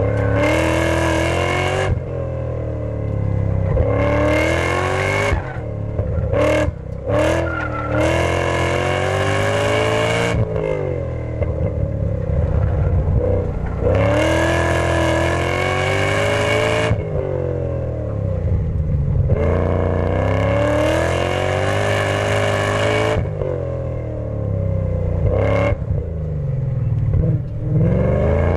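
BMW E39 M5's 4.9-litre V8 through Supersprint headers, X-pipe, high-flow race cats and Dinan mufflers, heard from inside the trunk, revving hard and lifting off over and over on an autocross course. Each pull climbs in pitch and falls away as the throttle closes, with a few quick throttle blips between the pulls.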